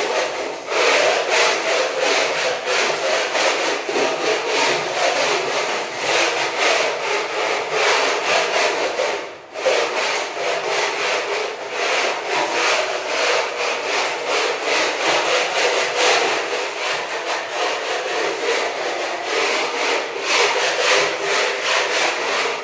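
Putty blade scraping wall putty across a wall in rapid continuous strokes while applying a second coat, with one short break about nine and a half seconds in. The scraping stops suddenly at the end.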